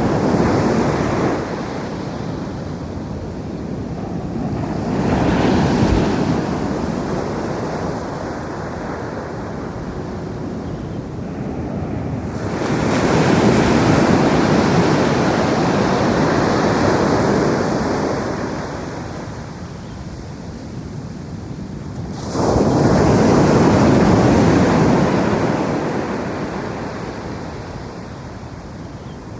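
Ocean waves breaking on a beach and washing up the shore, the surf swelling and fading every several seconds. The two biggest waves crash in suddenly, one near the middle and one about three-quarters through.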